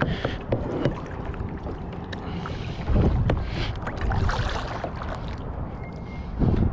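Water splashing and lapping around a kayak, with wind buffeting the microphone. The water rises in a few louder swells, about three seconds in, around four and a half seconds, and near the end.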